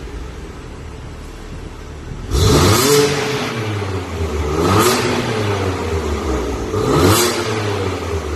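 BMW F80 M3's twin-turbo straight-six running through an ARMYTRIX valved aftermarket exhaust: it idles steadily, then is revved three times, about two seconds apart, each rev rising in pitch and falling back to idle.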